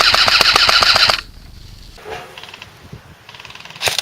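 Airsoft electric gun firing on full auto: a long burst of rapid, even mechanical clacks from the gearbox that stops about a second in. Fainter bursts follow, and another loud burst starts near the end.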